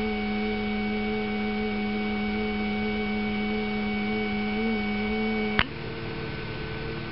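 Steady electric hum from the cooler's small water-cooling pump and heatsink fan running. About five and a half seconds in there is a sharp click, and the hum goes on a little quieter at a different pitch.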